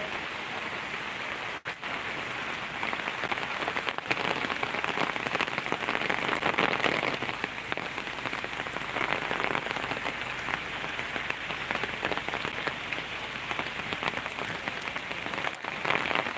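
Steady rain falling on wet pavement and surroundings, a constant hiss made of many small drop hits. The sound cuts out for an instant about a second and a half in.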